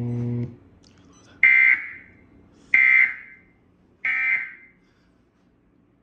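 Emergency Alert System end-of-message data tones: three short, identical, screechy digital bursts about 1.3 seconds apart, marking the close of the severe thunderstorm warning. Heard through a TV's speakers in a room, each burst trails off in echo.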